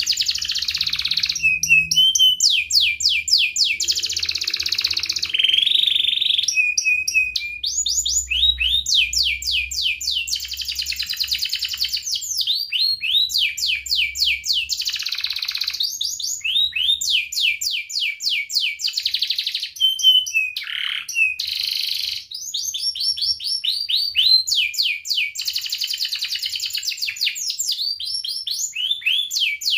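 Domestic canary singing without pause: long runs of fast repeated trill notes, each run a rapid string of sweeping whistles, with short breaks between phrases.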